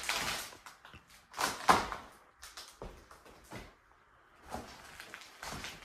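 Irregular knocks and scuffs in a small bare room, roughly one a second, the loudest about a second and a half in: a person moving about, with footfalls and the knock of cupboard or cabinet fittings.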